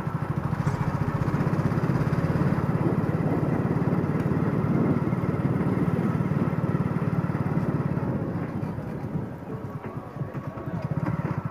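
Small motorcycle engine running steadily with a fast, even pulsing note, easing off for a couple of seconds near the end and then picking up again.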